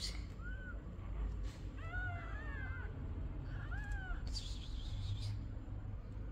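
Newborn kittens giving a handful of short, high, arched mews, several overlapping about two seconds in. A brief hiss of noise comes about four seconds in.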